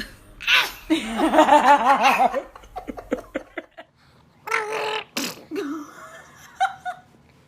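Someone laughing in quick, rising-and-falling pulses about a second in, followed by scattered short clicks and a few brief noisy bursts.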